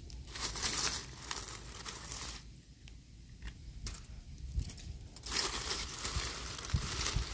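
Dry leaf litter and brush rustling and crackling underfoot and against the body, in two longer stretches with scattered snaps in between.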